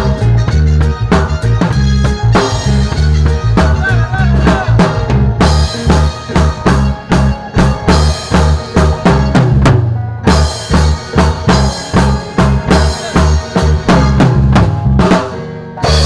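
Music with a drum kit playing a steady beat over heavy bass.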